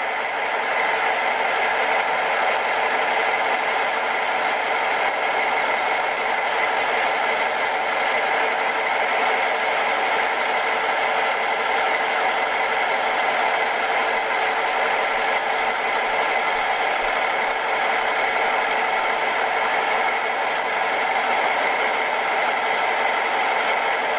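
Steady vehicle engine running sound, a constant hum and rush that holds one level with no rise or fall in pitch.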